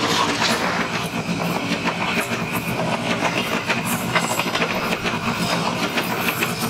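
Diesel-hauled passenger train passing close by, its coaches' wheels clattering over the rail joints in a steady stream of clicks over the rumble of wheels on the track.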